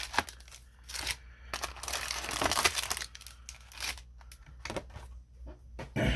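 Plastic shrink wrap being torn and crinkled as it is pulled off a sealed trading-card display box, in several irregular rustling bursts, the busiest about a second or two in.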